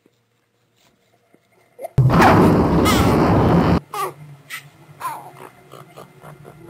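Horror sound-design effects: about two seconds in, a loud harsh burst of noise lasting nearly two seconds that cuts off suddenly, followed by scattered faint clicks and short squeaky chirps.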